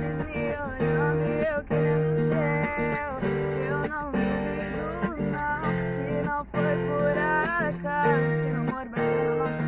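A teenage girl singing a song over acoustic guitar accompaniment, her voice sliding and bending between notes above steady chords that change every second or so.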